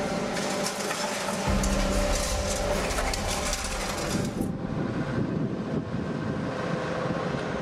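Demolition excavator running while its crusher grapple breaks into a concrete building, with concrete and debris clattering and crunching. About four and a half seconds in, the sound turns duller and loses its hiss.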